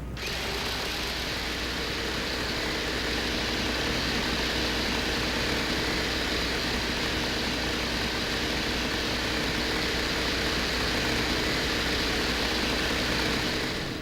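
Steady hiss with a low hum and a few faint held tones, presented as the Venera 13 lander's sound recording from the surface of Venus. It starts and cuts off abruptly.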